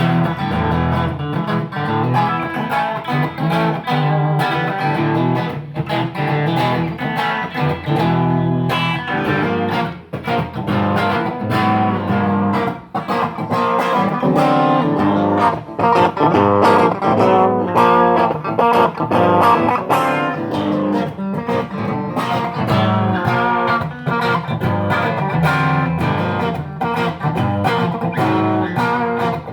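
Electric guitar played through a Gênova valve (tube) amplifier, with a continuous run of picked notes and chords.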